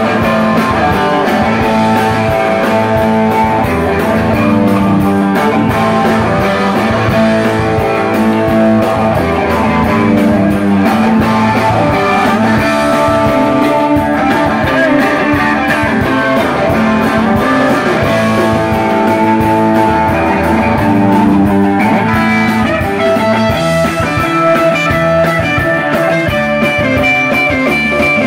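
Live rock band playing: electric guitars over a steady drum-kit beat, loud and continuous.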